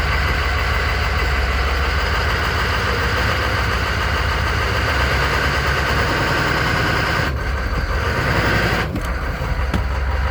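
1995 Chevy K3500's 6.5-litre turbo diesel V8 idling steadily, just started after sitting for about ten days.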